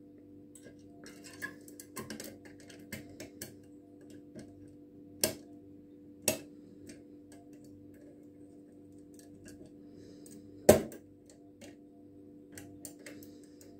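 Lever lock being picked with a hook pick against a tension tool: irregular light metallic ticks and clicks as the pick lifts the levers, with three sharper clicks, the loudest about two-thirds of the way through, over a faint steady hum.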